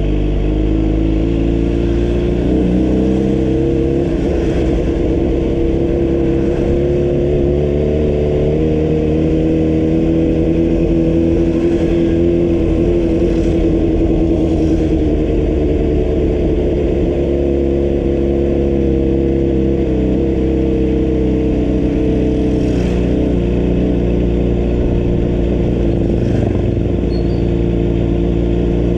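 Vehicle engine running steadily while under way, its pitch drifting gently up and down over a deep low rumble, with a few faint clicks.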